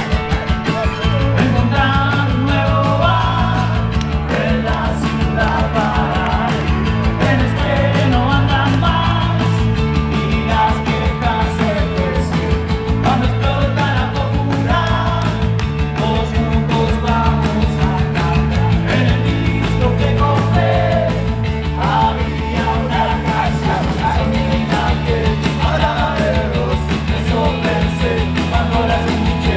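Rock band playing live: a male singer over drums, bass, electric and acoustic guitars.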